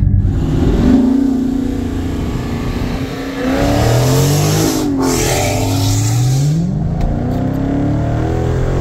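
The 6.4-litre HEMI V8 of a Dodge Challenger Scat Pack, freshly tuned, running with a steady drone. About three seconds in it accelerates hard, and the engine's pitch climbs twice as it pulls up through the gears. It is heard from a car alongside, with wind rushing past the open window.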